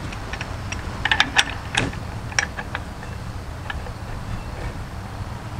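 A handful of light metallic clicks and clinks as the adjuster is worked into place between the shoes of a 1995 Chevy K1500's rear drum brake, most of them bunched about a second or two in, over a steady low hum.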